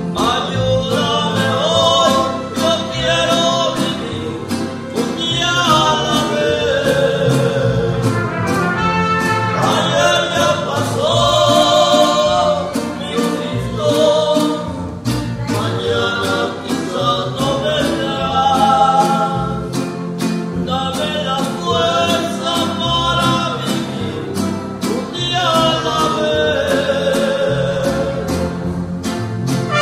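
Mariachi band playing and singing: voices in phrases over two violins, strummed vihuela and guitars, and a guitarrón bass line.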